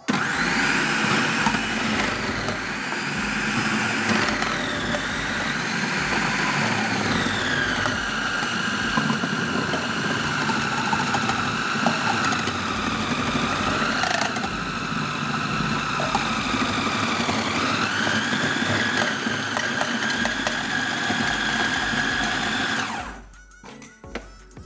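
Electric food processor running, chopping carrots and onions: a steady motor whine that starts sharply, sags and recovers in pitch a few times as the load changes, then switches off about 23 seconds in.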